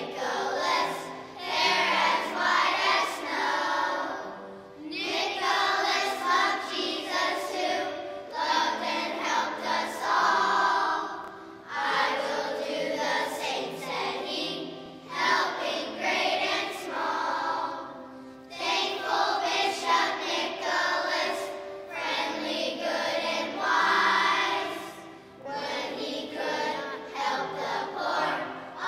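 A children's choir singing together, in phrases of a few seconds each with short breaks between them.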